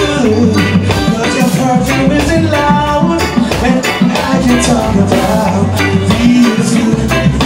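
Live reggae band playing an instrumental stretch of a song: drums keeping a steady beat under electric guitars and keyboards.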